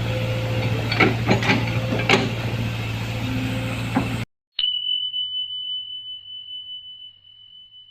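A heavy diesel engine running steadily, with a few sharp knocks in the first half. About four seconds in it cuts off abruptly and a single high chime rings out and slowly fades.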